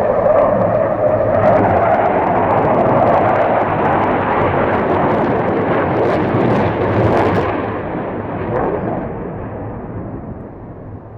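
Tornado GR4 jet's twin RB199 turbofans passing low and loud, a broad roar that holds strong for several seconds and then fades away as the jet moves off.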